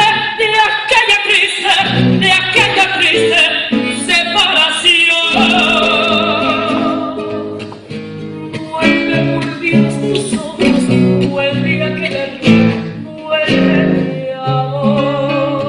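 A woman singing a Mexican huapango in full voice, with wide vibrato on held notes, to acoustic guitar accompaniment. The music dips briefly about eight seconds in, then voice and guitar pick up again.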